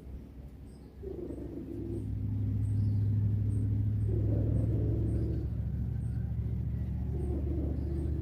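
A cat snoring softly, one snore about every three seconds, over a steady low hum.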